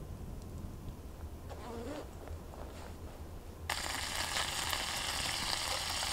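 Diced meat and mushrooms sizzling in a frying pan over a campfire, a loud steady hiss that starts a little over halfway in.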